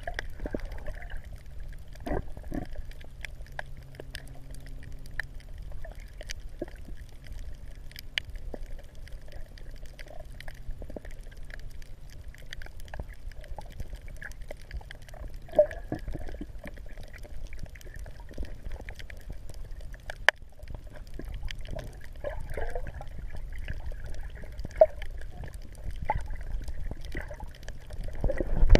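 Seawater sloshing and trickling, with scattered small splashes and clicks.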